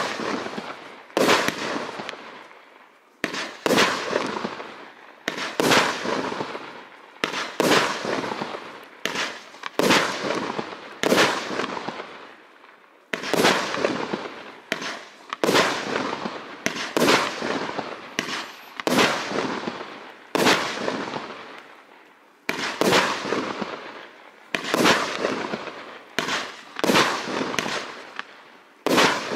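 NICO Delta Fire V138-1880 compound firework cake firing its 30 mm shells in a steady series, about one or two shots a second. Each is a sharp bang that trails off over about a second, with a few brief pauses between volleys.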